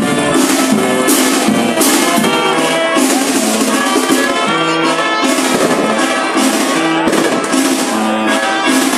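Band music with brass instruments and drums playing a lively tune.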